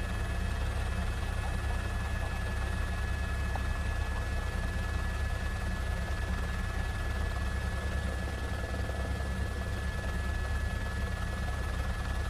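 Helicopter rotor and engine noise heard from aboard the aircraft: a steady low rumble with a thin, unchanging high tone above it.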